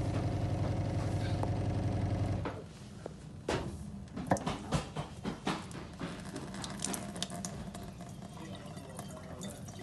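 A noisy filter's motor humming steadily, cutting off about two and a half seconds in; after it stops come irregular clicks and rattles with a faint sound of water.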